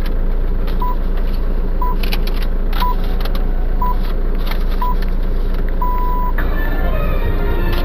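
Radio hourly time signal playing from a car radio: five short high beeps a second apart, then a longer sixth beep marking the top of the hour. A news jingle starts right after it, over a steady low hum.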